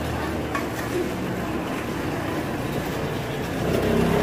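Steady low rumble that grows louder about three and a half seconds in, with a couple of light taps of a spatula on a flat-top griddle.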